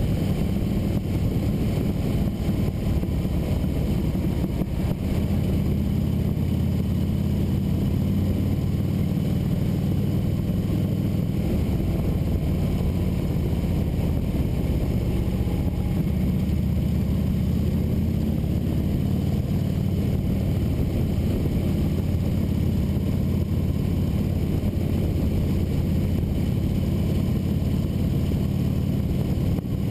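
Motorcycle engine running steadily at cruising speed, heard from on board the bike, with wind and road noise.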